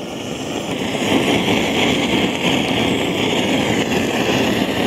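Handheld butane blowtorch on a gas canister, its flame hissing steadily as it sears crab roe and rice in the crab's shell.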